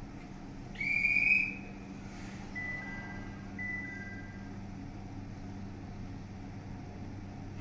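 A short, loud high whistle about a second in, then a soft two-note chime, higher note then lower, sounded twice, over the steady hum of 701 series electric trains standing at the platform.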